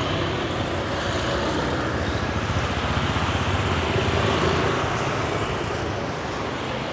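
Street traffic: motor scooters and cars running past close by with a steady engine rumble, swelling loudest about four seconds in as a group of scooters goes by.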